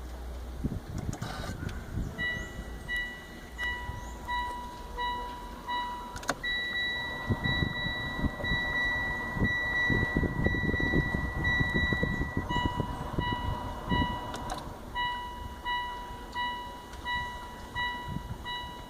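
A car's electronic warning chime beeping about twice a second, then sounding as one continuous tone for about six seconds before going back to beeping, with low knocks and rustling from handling.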